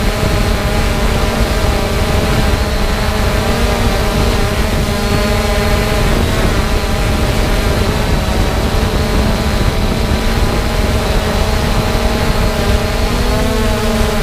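Quadcopter's electric motors and propellers heard from the drone's own on-board camera: a steady multi-tone hum over a heavy low rumble of prop wash and wind on the microphone, the pitch rising a little near the end as the motors speed up.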